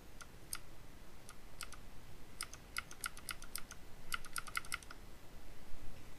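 Computer keyboard arrow keys tapped repeatedly, giving faint, sharp clicks. There are a few single presses at first, then quick runs of taps near the middle and again about two-thirds through.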